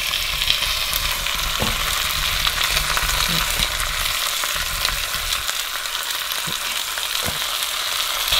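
Marinated pigeon halves sizzling as they brown in hot sunflower oil with fried onions in a pot, with a few light knocks as pieces are set down and moved.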